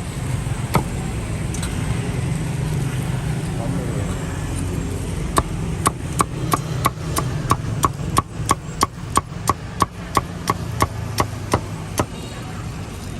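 Cleaver chopping grilled meat on a wooden board: a quick, even run of about twenty sharp strikes, roughly three a second, starting about five seconds in. Steady street traffic rumbles underneath.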